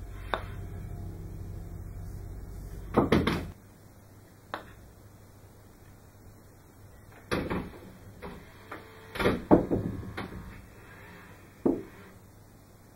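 Putter striking golf balls: a series of short, sharp knocks spread across several seconds, the loudest about three seconds in and again around nine and a half seconds in. A low hum underneath cuts off about three and a half seconds in.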